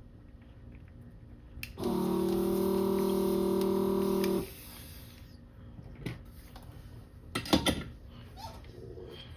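A small electric motor or pump buzzes steadily for about two and a half seconds, then cuts off abruptly. Near the end comes a quick cluster of clicks and rattles.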